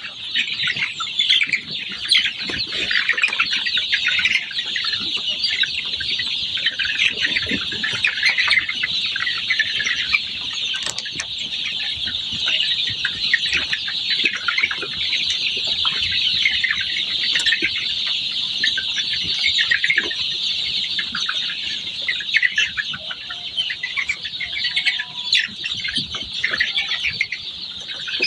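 A large flock of farm chickens calling together: a dense, continuous chorus of high cheeping and clucking.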